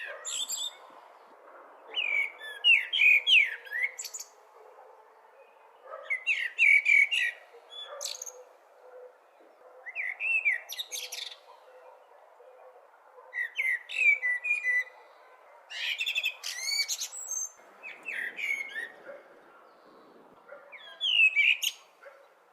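Blackbird singing: short song phrases about every three to four seconds, each a warble ending in a high, thin twitter, over a faint steady background noise.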